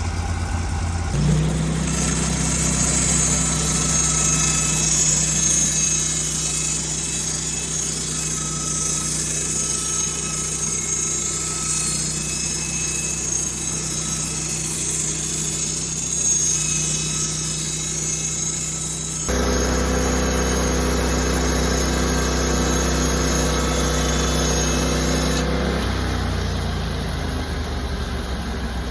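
Sawmill engine speeding up and the saw cutting along a cedar log, a steady engine note under a high hiss of the cut for about eighteen seconds. The sound then changes abruptly to the engine running on alone, settling lower near the end.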